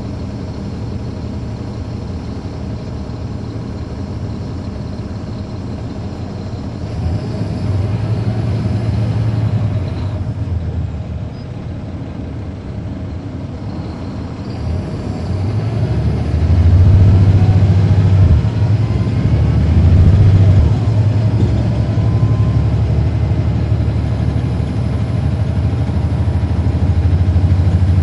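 Caterpillar C13 ACERT diesel of a 2009 NABI 416.15 transit bus, heard from on board with its engine cooling fans off. It runs steadily at first, eases back briefly near the middle, then pulls louder through the second half with a faint rising whine.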